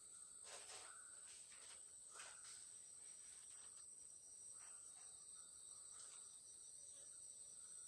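Faint, steady high-pitched chorus of crickets, with a second thinner high tone joining about two and a half seconds in and a few soft clicks.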